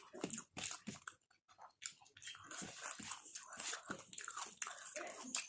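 A person chewing and biting food close to the microphone: irregular crunches and mouth noises, several a second.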